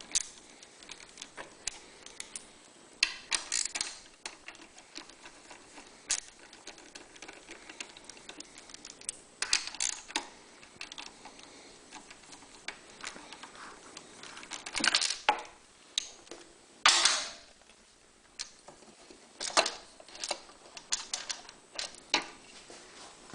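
Hand ratchet clicking in short runs as the 10 mm-head bolts holding the valve cover on a Champion 3100-watt generator's engine are backed out, with scattered clinks of small metal parts in between.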